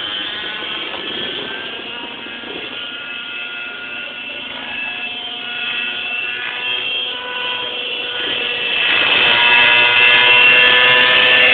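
Radio-controlled model helicopter in flight: its engine and rotor make a steady high-pitched whine with several overtones, growing louder about nine seconds in.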